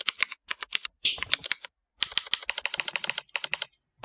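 Rapid typing: mechanical-keyboard keystroke clicks played by the Mechvibes program from its brown-switch sound pack as each key is pressed. One louder keystroke with a short ring about a second in, then a quick flurry of key clicks.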